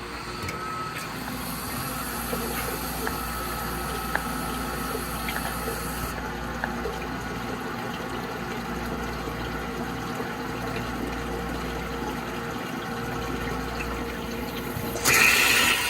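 Fanuc 1iA wire EDM running its automatic wire threading cycle in a water-filled work tank: steady water flow and pump running, with faint scattered clicks. A sudden, louder hiss starts near the end.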